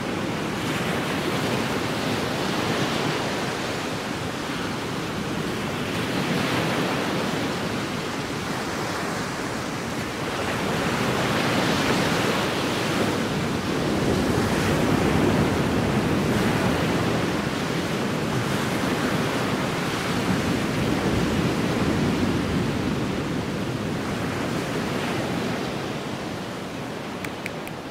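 Sea surf washing in and drawing back, swelling and easing every few seconds, with wind.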